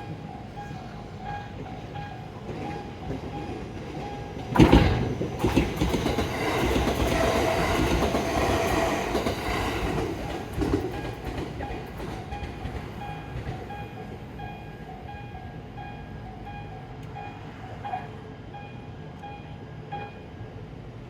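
Japanese level-crossing warning bell ringing in a steady repeating ding rhythm. About four and a half seconds in, a train suddenly passes through the crossing with loud rumbling and rattling for several seconds before it fades, and the bell keeps ringing.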